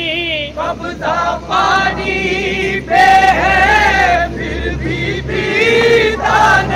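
A group of men singing a devotional chant together in unison, with long held notes that waver and bend in pitch.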